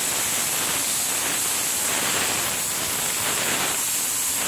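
Compressed-air gravity-feed paint spray gun hissing steadily while spraying paint.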